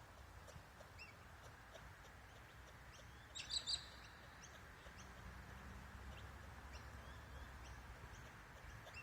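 Faint bird chirps, with a brief louder cluster of sharp high chirps about three and a half seconds in.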